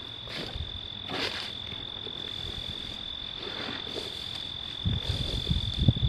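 Crickets trilling, one steady unbroken high-pitched tone. A few soft rustles come through, and low rumbling thumps near the end are the loudest sound.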